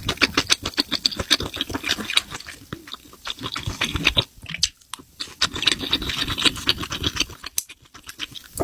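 Close-miked chewing of spicy mushrooms, a dense run of small wet crackling clicks that thins out midway and picks up again.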